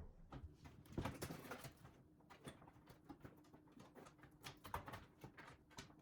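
Faint, scattered clicks and light knocks of computer parts being handled as a desktop PC is taken apart, over a faint steady hum.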